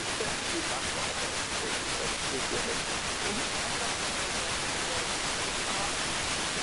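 Weak wideband FM broadcast signal (Radio Sonder Grense on 102.3 MHz) received by aircraft scatter: steady FM receiver hiss with a faint voice breaking through the noise in the first half, then mostly hiss. The reflected signal is too weak to quiet the FM noise.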